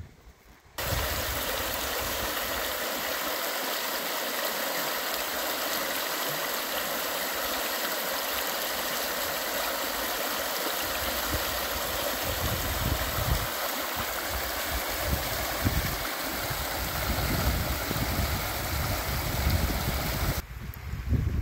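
Shallow river water rushing over a rocky riffle: a steady splashing rush that starts suddenly about a second in. In the second half, irregular low gusts of wind rumble on the microphone.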